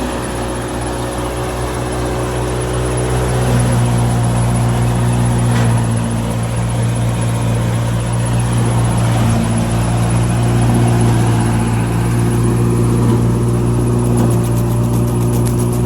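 Old diesel combine harvester running steadily, its engine and threshing machinery giving a continuous low drone. It gets a little louder about three and a half seconds in.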